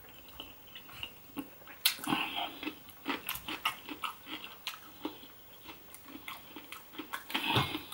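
Close-miked chewing of food, with wet mouth sounds and many short, sharp clicks; a louder run of chewing near the end.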